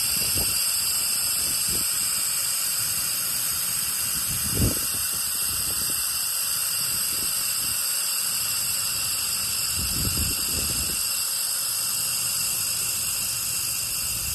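Handheld laser welding machine running with a steady hiss and several high steady whines, with one short thump about four and a half seconds in.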